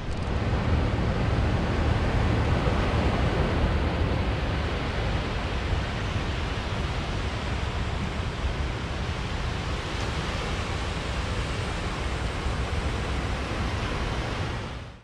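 Small surf washing up on a sandy beach, with wind rumbling on the microphone; the sound cuts off sharply near the end.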